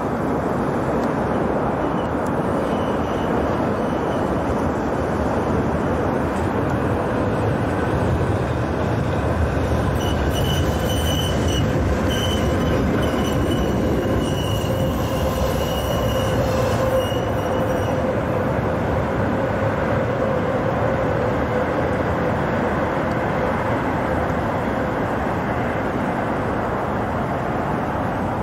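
A 71-931M Vityaz-M low-floor tram passing on its rails, a steady running noise. Over it is a thin high whine that strengthens about ten seconds in, as the tram goes by, and cuts off about eighteen seconds in.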